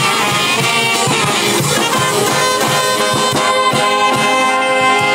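Brass band playing a dance tune: trumpets and trombones hold chords over a steady drum beat.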